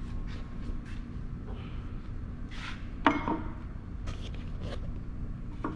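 Steady low hum of workshop room tone with scattered faint clicks, and one sharper knock about three seconds in.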